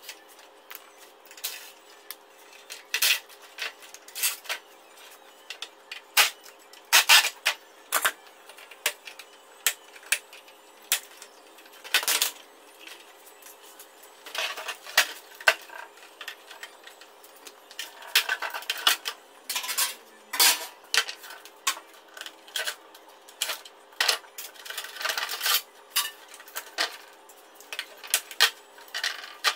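Clicks and clatter of screws, plastic covers and metal parts as a wall-mounted split air-conditioner indoor unit is taken apart. A cordless drill-driver runs briefly a few times, unscrewing it, and once winds down.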